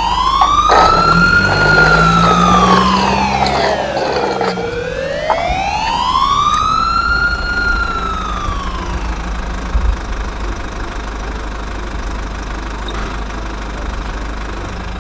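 Wailing siren rising and falling slowly twice, then fading away about nine seconds in, over a steady low rumble.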